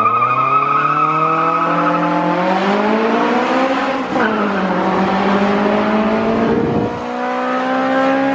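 Car engine accelerating hard through the gears: its pitch climbs, drops at an upshift about four seconds in, climbs again, and drops at another shift near the end.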